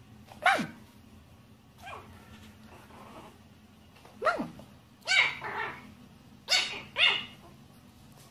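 Small white fluffy puppy barking in short, high yaps, about six in all, each dropping quickly in pitch, with two pairs in quick succession in the second half.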